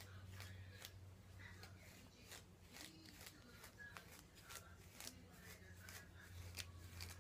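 Faint, crackly scratching of a comb being worked through natural hair from the ends upward: many short, irregular strokes, over a low steady hum.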